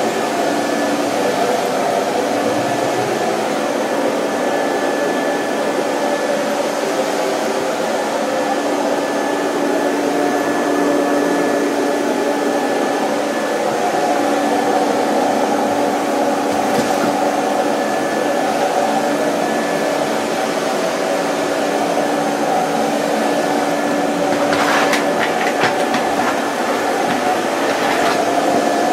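ProTeam QuietPro backpack vacuum running steadily as its floor tool is pushed over carpet, a constant motor hum with a faint high tone. A brief clatter of knocks comes near the end.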